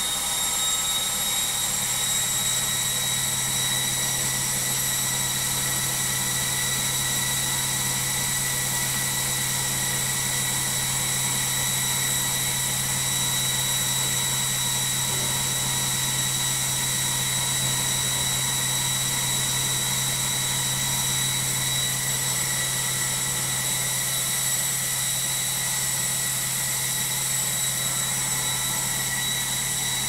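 Logik front-loading washing machine in its final spin, the drum turning at a steady high speed with a high-pitched motor whine over a low hum.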